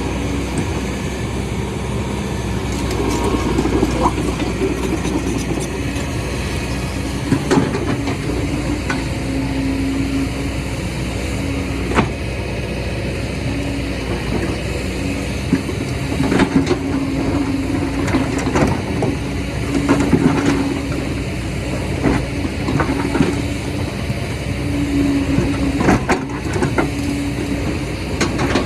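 Excavator's diesel engine running steadily. A humming tone comes and goes over it, and sharp knocks sound every few seconds.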